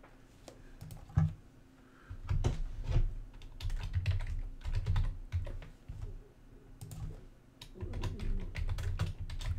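Typing on a computer keyboard: uneven bursts of keystrokes with dull thuds, pausing briefly a little past the middle. A single sharp click comes about a second in.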